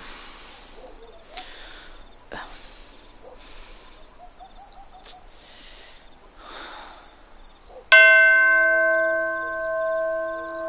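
Crickets chirping steadily in a high, pulsing trill; about eight seconds in, a bell is struck once, loudly, and rings on with several clear tones that slowly fade.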